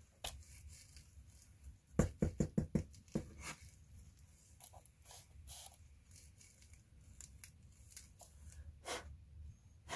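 Hands handling things on a paper-covered tabletop. About two seconds in comes a quick run of about seven sharp knocks and clicks, followed by scattered soft ticks and rustles.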